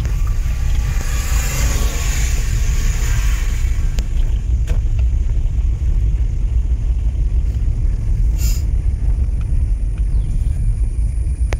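Car cabin noise while driving slowly: a steady low rumble of engine and tyres, with a hiss that swells and fades over the first few seconds and two brief ticks later on.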